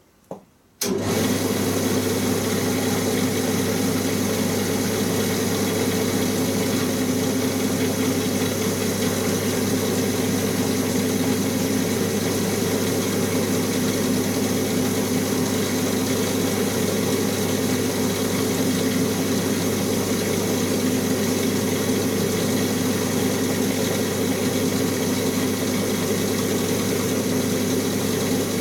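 A shoemaker's bench finishing machine switched on about a second in, its electric motor and rotating brush wheels then running steadily.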